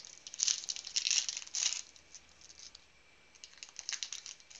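Foil trading-card pack being slit and torn open: loud bursts of crinkling foil in the first two seconds, then lighter crinkling and clicks a few seconds in as the cards are slid out of the wrapper.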